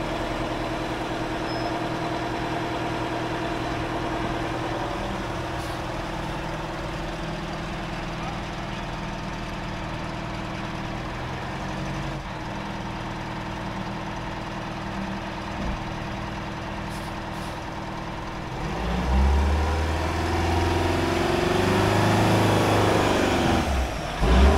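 The M1070 HET tractor's Detroit Diesel 8V92 two-stroke V8 diesel running steadily at low revs. About three-quarters of the way through it revs up hard and stays loud as the 8x8 truck drives up a dirt mound under load, blowing black smoke.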